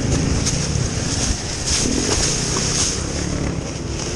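Beta 300RR two-stroke dirt bike engine running as the bike is ridden over rough trail.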